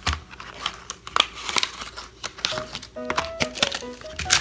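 Plastic packaging crinkling and crackling as a fidget spinner's package is handled and opened, over light background music.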